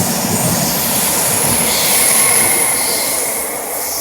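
Greater Anglia passenger train to Norwich departing the station and quickly picking up speed: a loud, steady rush of wheels and traction, with a high thin whine that swells about halfway through.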